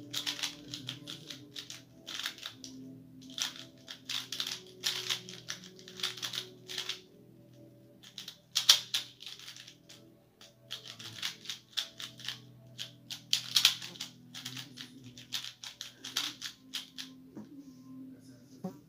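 QiYi Valk 3 M magnetic speedcube being turned fast in a speed solve: rapid runs of plastic clacking broken by short pauses. The turning stops shortly before the end as the solve finishes.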